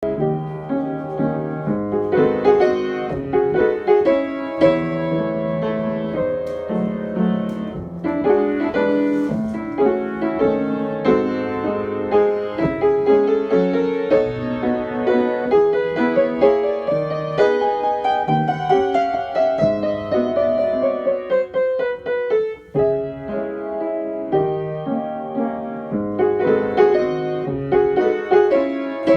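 Piano music playing a steady flow of notes, with a long descending run in the second half.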